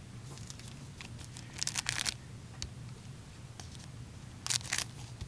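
A trading-card pack's wrapper being torn open and crinkled in two short bursts, about two seconds in and again near the end, with a few light ticks of handling in between.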